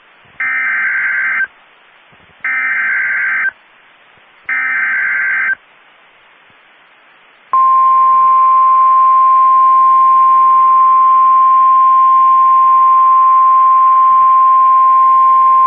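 NOAA Weather Radio Emergency Alert System activation for a severe thunderstorm warning. Three one-second bursts of SAME digital header data come about two seconds apart. After a short pause, the steady single-pitch 1050 Hz warning alert tone starts about seven and a half seconds in and holds.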